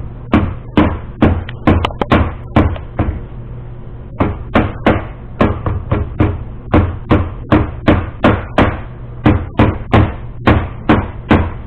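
Rubber mallet tapping rubber edge trim down onto the top edge of a UTV windshield: a steady run of sharp knocks, about two or three a second, with a short pause about three seconds in.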